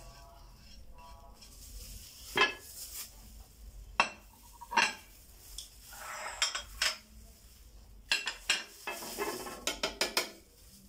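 Dishes and utensils knocking and clinking against a blender's chopper bowl as spices and ingredients are scraped and tipped in. There are a few separate knocks early on, then a quick run of clicks near the end.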